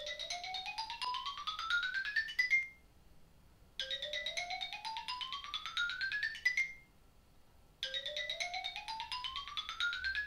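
An electronic mallet-like jingle: a quick run of notes rising in pitch over about two and a half seconds, played three times with short pauses between.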